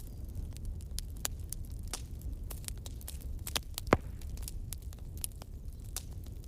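Bonfire crackling: irregular sharp snaps and pops over a steady low rumble of the burning fire, with one louder pop about four seconds in.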